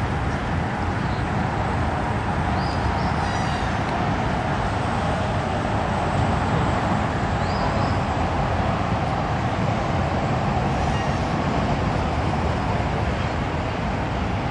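Steady outdoor rumble of wind on the microphone and road traffic, with a few short high chirps now and then.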